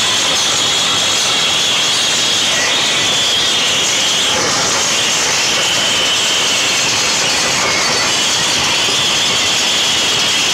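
Extremely loud DJ sound-system music, so overloaded on the phone's microphone that it comes through as a steady distorted noise with no clear beat.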